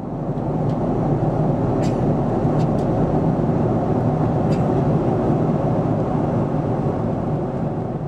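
Steady roar inside a jet airliner's cabin at cruise: engine and airflow noise, with a few faint clicks.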